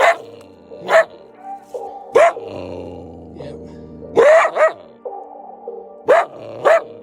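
A canine barking in short, sharp barks, about seven of them at irregular intervals, over soft background music.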